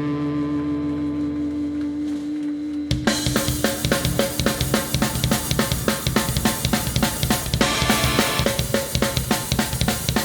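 Hardcore punk band playing live. A held, ringing electric guitar chord sustains for about three seconds, then the drums and full band crash in at a fast, driving beat.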